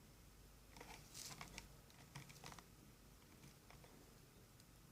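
Near silence, with a few faint, soft clicks of handling: once about a second in, and again about two and a half seconds in.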